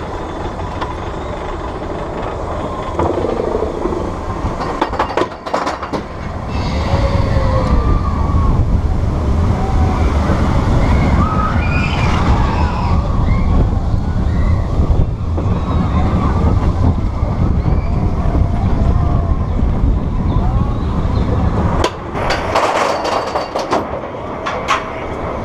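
Roller coaster train running along its track: a steady low rumble of wheels on rail that grows louder about six seconds in and eases off near the end, with riders' voices and calls over it.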